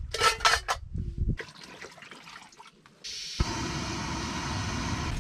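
Water splashing at the shoreline for about a second. Then, about three seconds in, the steady hiss of a canister camp stove burner running under a pot.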